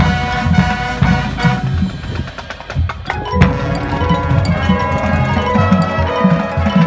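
Marching band playing, heard from beside its front ensemble of mallet keyboards and percussion, over a pulsing low end. The music dips briefly between two and three seconds in, then comes back with held chords.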